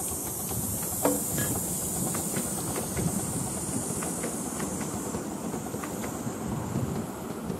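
7¼-inch gauge miniature steam locomotive passing with its passenger carriages: steam hissing, fading after the first few seconds as the engine moves on. The wheels click irregularly on the track, with a sharp click about a second in, over a low rumble of the carriages rolling by.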